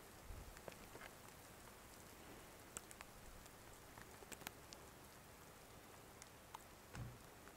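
Near silence with faint, scattered light ticks of falling snow pattering down, and a soft low thump near the end.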